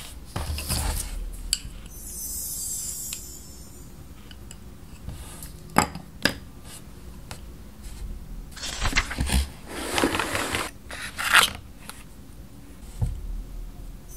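Hands handling a sketchbook and art supplies on a desk: paper rustling, a couple of sharp clicks as colored pencils are laid down, and bursts of rustling and scraping as the pencil and paint tube are picked up.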